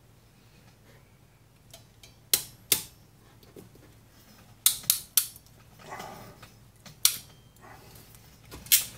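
Ratcheting crimping tool clicking as its jaws close a blue insulated ring terminal onto 14-gauge wire. There are several sharp clicks in small groups, with a soft rustle of handling between them.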